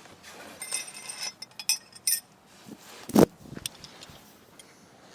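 Metal parts clinking and rattling as they are handled, with ringing high tones, then one sharp knock about three seconds in and a few lighter taps.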